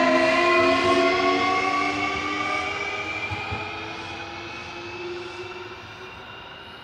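Electric train's traction motors and inverter whining in several tones that climb slowly in pitch as it speeds up, the sound fading away as the train draws off.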